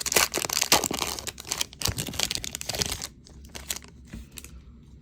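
Wrapper of a baseball card pack crinkling and tearing as it is opened, dense for about three seconds, then quieter with a few light clicks.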